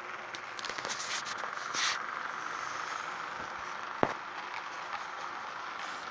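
HO-scale model passenger train running along the track: the Athearn Blue Box locomotive's electric motor whirs steadily and the wheels click over the rail joints, with one sharp click about four seconds in.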